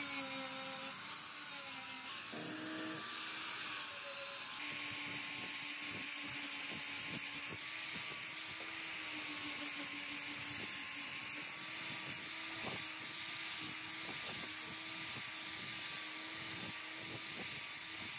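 Electric angle grinder running steadily with an abrasive disc, grinding rust off a steel hedge shear blade. It makes a continuous whine over a grinding hiss, its pitch wavering slightly as the disc is pressed on the metal.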